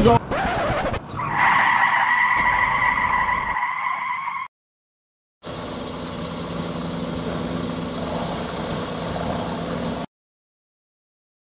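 Car tyres squealing in a hard braking skid for about three seconds, cut off suddenly. After a short gap, a Buick sedan's engine idles steadily.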